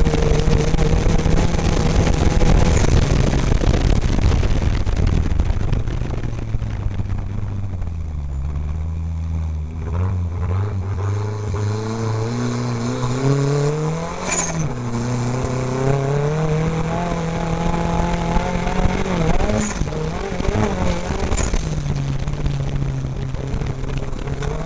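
Off-road race car's engine heard from inside the cockpit, its pitch falling and climbing with the throttle and gear changes, over the steady rattle and rumble of the car on a dirt track. The noise is heaviest in the first few seconds; the engine is lowest about a third of the way in, then climbs back and holds, with a sharp knock about halfway and two brief dips in pitch near the end.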